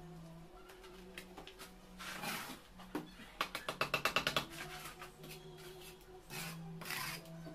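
Steel trowel scraping mortar along the joints of concrete blocks, with a rapid run of light taps about three and a half seconds in. Faint background music with held notes plays underneath.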